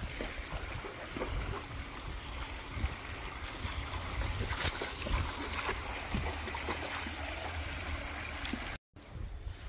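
Water running and gurgling over the rocks of a small backyard stream, a steady rushing trickle, with a low rumble underneath. The sound cuts out briefly near the end.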